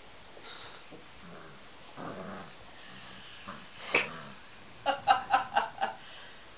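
Skye terrier puppy giving one sharp bark about four seconds in, then a quick run of five high-pitched yaps within about a second.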